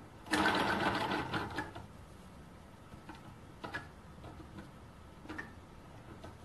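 Home-built gamma-type Stirling engine turned over by hand at its flywheel: a burst of rapid mechanical clattering for about a second and a half, then a few scattered clicks.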